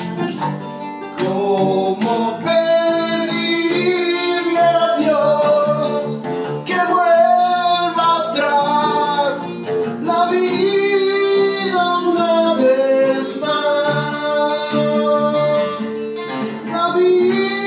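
A man singing a rock ballad in Spanish over a nylon-string acoustic guitar and an acoustic bass guitar, played live together in an unplugged band rehearsal.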